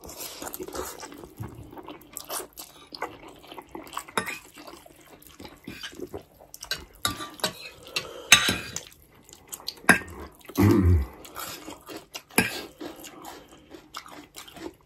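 Close-up eating sounds: wet slurping and chewing of instant ramen noodles, with forks and spoons clinking and scraping on ceramic plates in irregular small clicks, a few of them louder.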